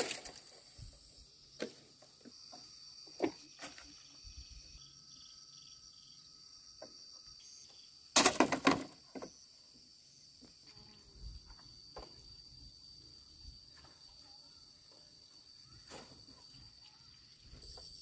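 Insects chirring steadily in a high band, with a few knocks of bamboo poles early on and a short burst of bamboo clattering about eight seconds in.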